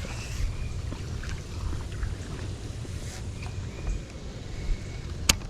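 Steady low rumble of a fishing boat sitting on the water, with wind on the microphone and one sharp click about five seconds in.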